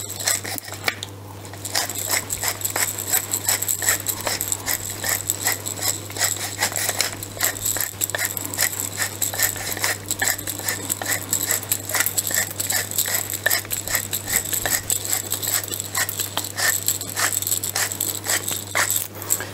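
Hand-twisted pepper mill grinding peppercorns: a fast, continuous run of crunching clicks, with a short pause about a second in.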